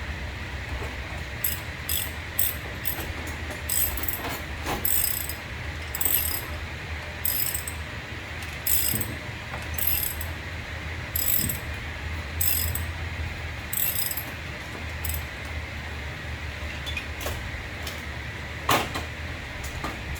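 Ratchet wrench clicking in short strokes, roughly one a second, as a 14 mm brake caliper bolt is backed out; the clicking stops about three-quarters of the way through and a single sharp metallic click follows near the end. A steady low hum runs underneath.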